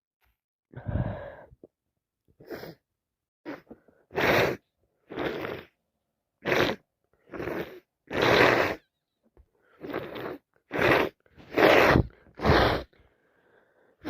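A woman sneezing over and over, about a dozen short sneezes in quick succession with sharp breaths between. She has a heavy head cold with a congested, running nose.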